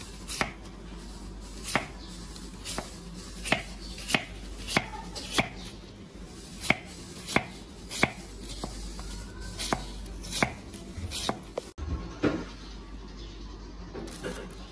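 A knife chopping through slices of banana pseudostem (banana tree trunk) onto a wooden chopping board, with a sharp knock about every two-thirds of a second. Near the end the chopping stops and a plastic bag rustles.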